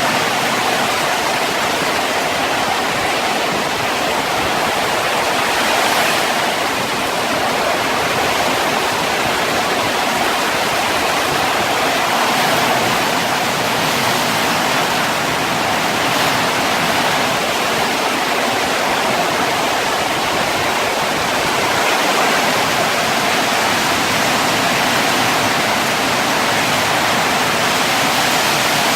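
Heavy downpour in strong wind: a loud, steady rush of rain, with brief brighter swells around six and sixteen seconds in.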